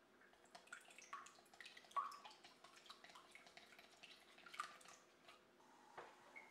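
Wooden chopsticks beating raw eggs in a glass mixing bowl: quick, irregular clicks of the sticks against the glass and the wet egg, starting about half a second in and stopping about five seconds in, then a single light knock.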